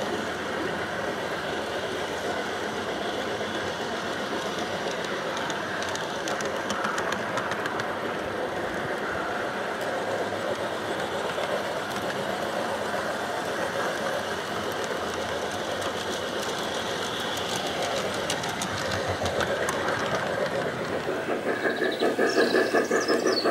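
Small G-scale model train wagons rolling along garden track, a steady rattle and clicking of plastic wagons and wheels on rail, heard close up from a camera riding on the train. Near the end the sound grows louder with a fast, even pulsing as a second model locomotive with its train comes alongside.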